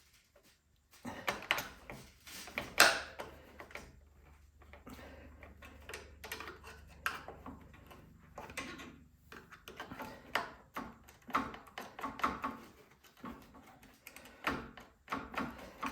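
Irregular clicks, scrapes and knocks as a stubborn choke knob is wiggled and pried off its shaft on a snowblower engine, with the two sharpest clicks in the first three seconds.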